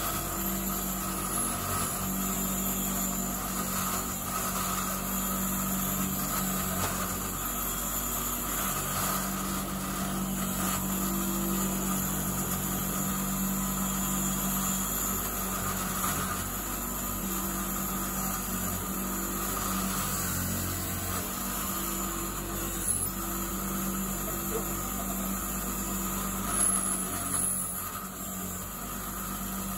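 Bench grinder running with a wire wheel fitted, its motor humming steadily, as a cast aluminium piece is pressed against the spinning wire brush to clean and polish it; the level swells and dips a little as the piece is worked against the wheel.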